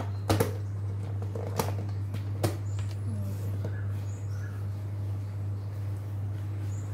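A steady low hum, with four sharp clicks in the first two and a half seconds from plastic kitchenware being handled.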